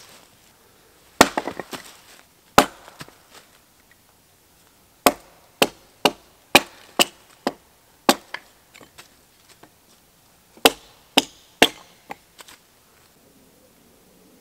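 Hatchet splitting a short round of firewood on a log, with about a dozen sharp wooden chops. There are two single strokes, then a run at about two a second, then three more near the end, some followed by small clatters of falling pieces.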